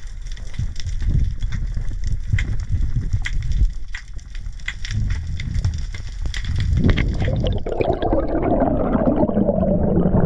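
Underwater water noise heard through an action camera's housing: a low rumble of moving water with scattered sharp clicks and crackles. About seven seconds in, a louder rushing noise of bubbles sets in and holds.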